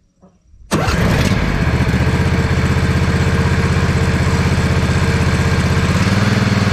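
Replacement Briggs & Stratton engine on a John Deere Z425 zero-turn mower starting up, catching almost at once less than a second in, then running steadily with its newly fitted muffler; its note shifts slightly near the end.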